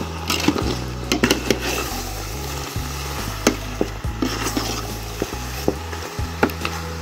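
A metal ladle stirring chunks of beef liver in a thick sauce in a pot, knocking and scraping against the pot in a dozen or so sharp clicks, over the sizzle of the sauce cooking.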